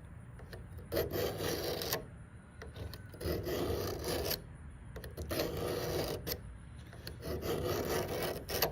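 A steel knife blade drawn along a 350-grit sharpening rod in four slow rasping strokes, about one every two seconds, reprofiling a dull, hard edge.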